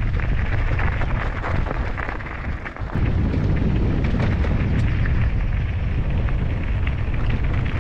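Wind buffeting the microphone as a mountain bike rides along, with the bike rattling and ticking over the trail. It eases briefly just under three seconds in.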